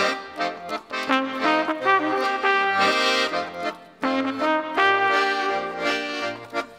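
Solo trumpet playing a jazz melody over accordion accompaniment. The music jumps abruptly to another passage about four seconds in.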